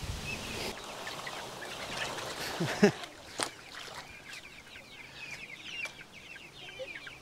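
Laying hens clucking, with a couple of sharp knocks about halfway through.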